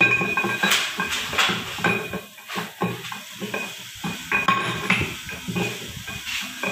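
Irregular metal clicks, clinks and scraping as a Mitsubishi 4D34T camshaft, its bushings freshly oiled, is slid into the engine block and turned by hand, and its steel timing gear is set onto the end.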